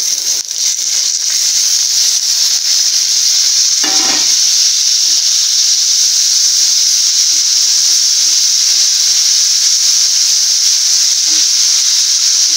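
Shallots, garlic cloves and freshly added chopped tomato frying in sesame oil in a nonstick pan, a steady loud sizzle as a wooden spatula stirs them, with a few knocks of the spatula near the start.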